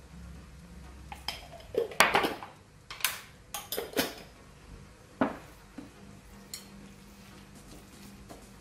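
A metal spoon clinking against a glass salt jar and a ceramic bowl, with the jar knocked down onto the countertop: a string of sharp clinks and knocks, thinning out after about five seconds.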